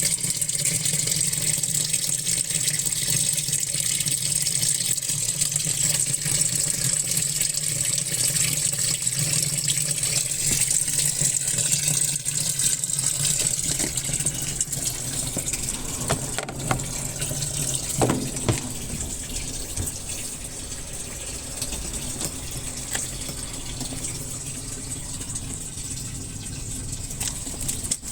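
Muji M-W42D fully automatic washing machine filling its tub with water: a steady rush of running water over a low hum, with a few clicks about two thirds of the way through.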